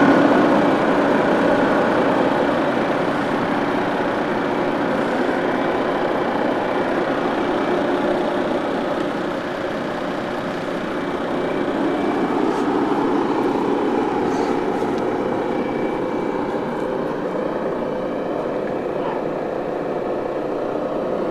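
Steady drone of a truck engine idling.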